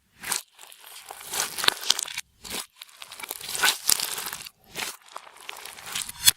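Clear slime with makeup and glitter mixed in, being squeezed and stretched by hand. It makes irregular bursts of sticky, crackly noise with short silent gaps between them.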